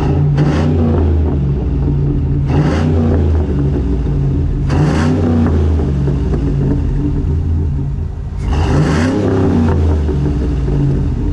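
2004 Chevrolet SSR's 5.3-litre V8 revved from idle with four blips of the throttle, the last one the longest, settling back to a steady idle between them. Very loud.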